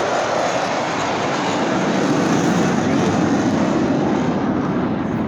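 An airplane flying past overhead: a loud rushing engine noise that swells to its peak about two seconds in and drops in pitch as it passes, easing off near the end.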